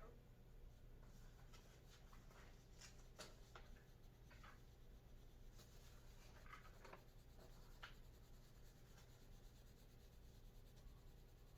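Faint, irregular scratching of a pen or crayon drawing on paper, over a low steady hum.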